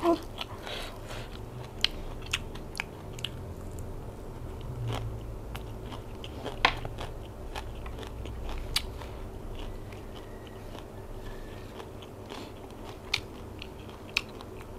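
Close-up chewing and crunching of a mouthful of silkworm-pupa koi salad with green mango and raw leaves, with scattered short sharp clicks from the mouth.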